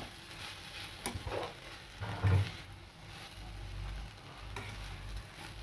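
Cabbage and soya chunks frying in a pan with a quiet, steady sizzle, and a few knocks and scrapes as the pan is stirred, the loudest a little over two seconds in.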